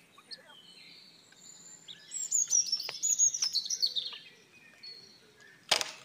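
A flock of small birds chirping: a rapid run of high chirps, stepping down in pitch, starts about two seconds in, with scattered single chirps around it and a sharp click near the end.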